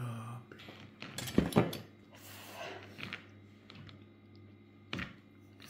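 Kitchen knife cutting zucchini on a wooden cutting board: two sharp knocks of the blade on the board about a second and a half in, then a single lighter click near the end.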